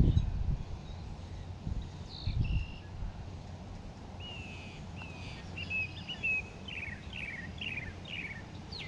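A small bird chirping outdoors, with scattered calls in the middle and then a quick run of short falling notes near the end, over a low wind rumble on the microphone that is strongest near the start and again about two and a half seconds in.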